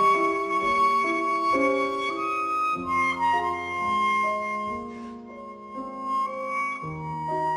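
Clarinet and piano playing a classical duo: the clarinet carries a melody of held notes over piano accompaniment. The music softens about two-thirds of the way through, then grows louder again.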